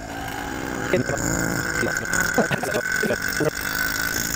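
A vacuum pump runs, drawing the air out of a clear acrylic vacuum chamber through its hose. A steady high tone sets in about a second in and holds.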